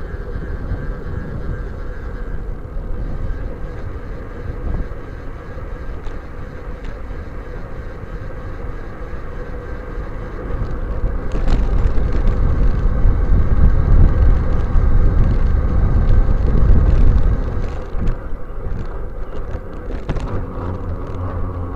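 Wind buffeting and tyre rumble on asphalt picked up by a camera mounted on a moving road bicycle. It grows louder for about six seconds midway, and a few sharp knocks come near the end.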